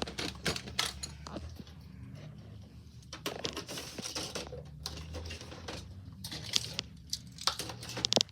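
Fidget toys and their plastic packaging being handled and put away: scattered clicks, taps and crinkling.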